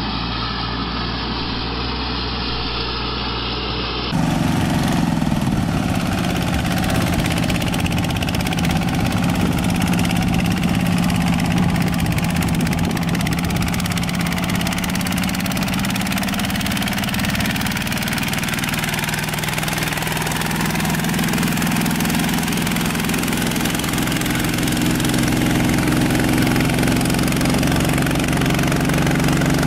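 Engine of a tracked paddy tractor running in mud. Then, from about four seconds in, the small engine of a walk-behind tractor running steadily as it tills a flooded rice paddy.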